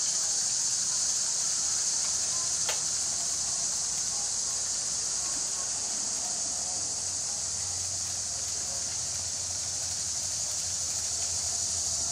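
Steady, high-pitched drone of insects in the garden. Over the last few seconds a faint low hum joins it, as a G-scale model train runs past close by, and there is one sharp click about three seconds in.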